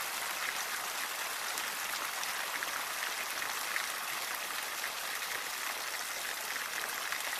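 Water from a Victorian cast-iron fountain falling and splashing steadily into its large basin: a constant hiss of falling water with fine splashes.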